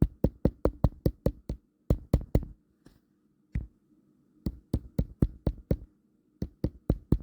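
Fingers tapping on a phone's touchscreen: quick runs of sharp taps, about four or five a second, with short pauses between runs.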